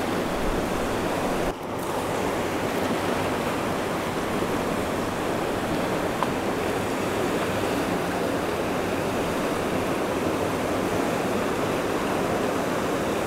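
Steady rushing of a fast river over rapids, with a brief dip in level about a second and a half in.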